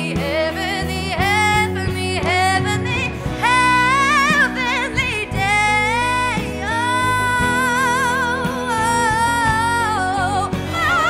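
A woman singing a song live with a band of guitars, keyboard and drums; her voice wavers in wide vibrato on long held notes.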